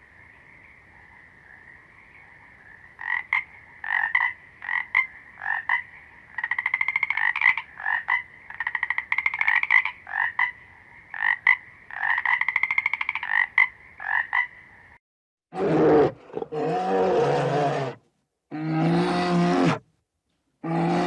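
Frogs calling: a steady high chorus with repeated short croaks over it. About 15 seconds in it cuts off, and a different, larger animal gives three long, deep calls.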